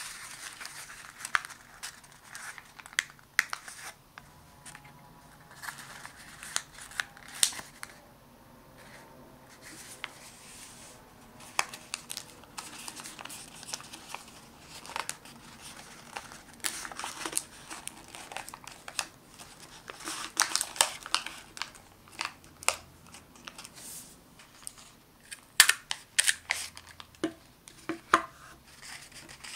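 Origami paper being folded and creased by hand: rustling and crinkling with many sharp crease clicks. Near the end come the loudest clacks, as a desktop hole punch punches a hole through the folded paper.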